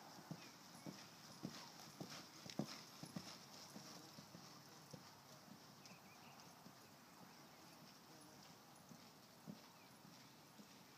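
Horse's hoofbeats, faint and uneven, thinning out after about four seconds.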